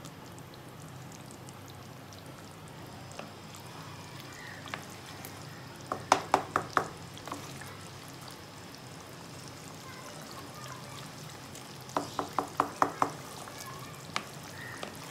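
Wooden spatula stirring chicken karahi in a non-stick karahi, with a steady cooking noise from the simmering gravy. Twice, about six and twelve seconds in, comes a quick run of five or six knocks as the spatula strikes the pan.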